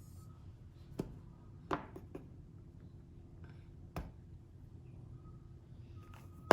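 A handful of light clicks and taps from kitchen utensils being handled over mugs and bowls, spread out, with the sharpest knock near the end, over a faint steady hum.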